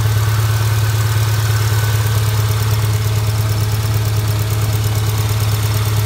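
2000 Subaru Outback's flat-four engine idling steadily with a fast, even ticking over its hum. The owner takes the tick for sticking hydraulic lifters.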